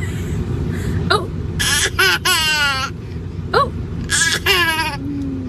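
Baby laughing in short, high-pitched squealing bouts, the longest about two seconds in and another about four seconds in, over a steady low background rumble.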